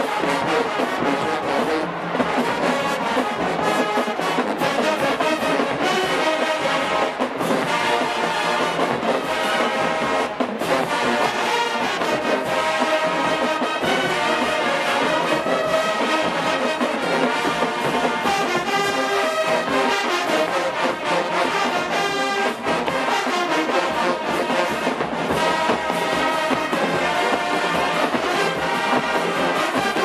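Marching band playing a loud, brass-heavy tune, trombones and trumpets over a steady beat of drums.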